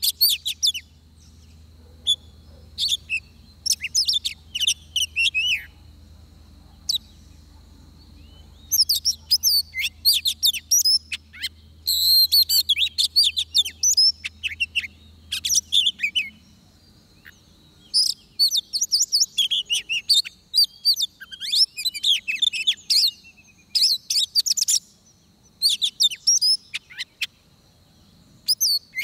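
Oriental magpie-robin singing in repeated bursts of quick, varied, high whistled phrases with short pauses between them.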